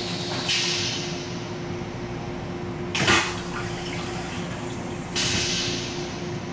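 Metro-North M7 railcar toilet flushing. A steady hum starts, water sprays into the stainless-steel bowl with a hiss about half a second in, and a sudden whoosh about three seconds in, the loudest sound, empties the bowl. A second hissing spray of rinse water comes near the end.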